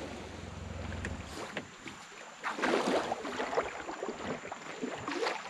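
Water splashing and sloshing in irregular bursts, loudest a little under three seconds in.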